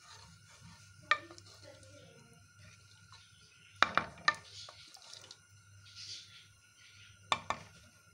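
A spoon stirring curry gravy in a metal pot, knocking against the pot a few times: once about a second in, three quick knocks near the middle, and two more near the end, over a faint steady hum.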